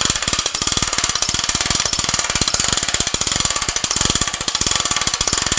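Hand winch of a Global Truss ST-180 crank stand being cranked, its ratchet giving a fast, steady clicking as the last telescoping section of the mast is raised.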